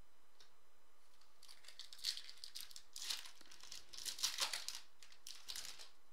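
Foil wrapper of a Topps Chrome football card pack being torn open and crinkled by hand: a run of crisp crackling rustles starting about a second and a half in and stopping just before the end.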